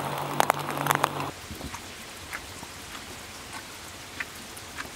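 Steady rain falling, with scattered drops tapping sharply. For about the first second a low steady hum and a few clicks sit under it, then they stop and only the rain is left.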